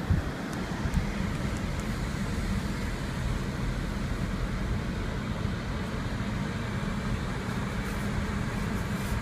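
Steady low rumble and road noise of a car driving, with a faint engine hum and no breaks.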